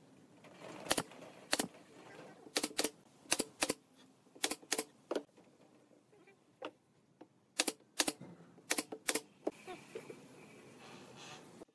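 Nail gun firing nails into pine boards: irregular sharp shots, many in quick pairs.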